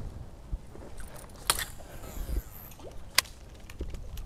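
A few sharp clicks and knocks from fishing tackle being handled while a lure is worked, the clearest about one and a half and three seconds in, over a low rumble.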